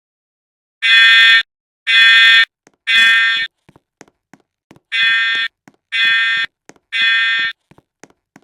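Fire alarm beeping loudly in the temporal-three evacuation pattern: three half-second beeps, a pause of about a second and a half, then three more. It is being tested.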